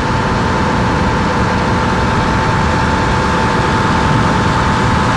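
Motor boat's engine running steadily under way, a constant even drone with a single steady whine over a rushing noise.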